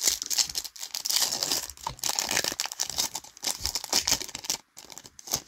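Foil wrapper of a Topps Chrome MetaZoo trading card pack being torn open and crinkled by hand: a dense crackle that stops about four and a half seconds in, followed by a couple of short crinkles.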